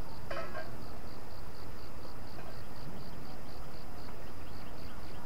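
An insect chirping in a steady, even, high-pitched pulse, about four chirps a second, over a steady low background rumble.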